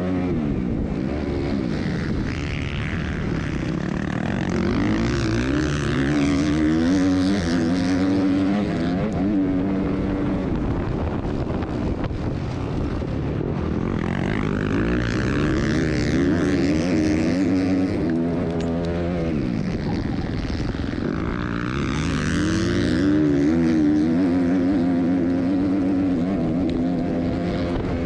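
Dirt bike engine running hard under the rider, its pitch rising and falling again and again as the throttle opens and closes and the gears change.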